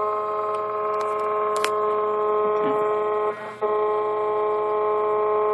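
3D printer's stepper motors whining steadily in several fixed tones as they drive the print head through a test pattern, with a short tick about a second and a half in and a brief dip about three and a half seconds in.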